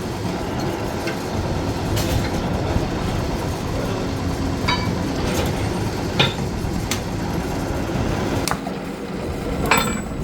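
Steady machine noise in a metalworking shop, broken by about half a dozen sharp metallic clinks and knocks, some ringing briefly.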